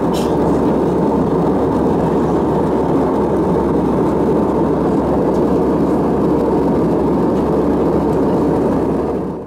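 Cabin noise of an Airbus A320 in cruise: the steady rush and rumble of airflow and engines heard from a window seat. It cuts out abruptly at the very end.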